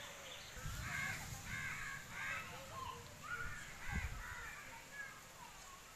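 Crows cawing in a run of short harsh calls. Low gusts of wind buffet the microphone, strongest about four seconds in.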